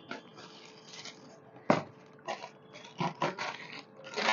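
Rustling and crinkling of printed wrapping paper and a cardboard shoe box being handled as the wrapping is pulled back from the sneakers inside, in uneven bursts, with one sharp crack a little before halfway that is the loudest sound.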